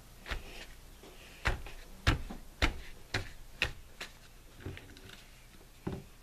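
Hands patting and pressing a damp paper napkin down onto a paper plate on a wooden tabletop: about eight irregular taps and knocks over several seconds.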